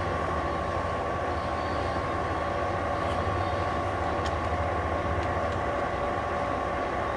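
Summit 14"x40" gap-bed engine lathe running under power, spindle turning with the gear train and lead screw driven: a steady gear whine of several constant tones over a low motor hum.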